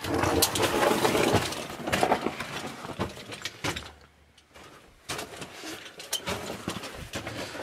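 Scraping and crunching of a person moving over loose rock and gravel, with many sharp clicks. It is loudest in the first few seconds, drops almost to nothing about four seconds in, then resumes more quietly.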